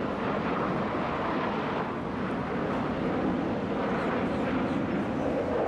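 Steady jet engine noise from four F-16 Fighting Falcon fighters flying in formation, a continuous rushing sound without distinct events.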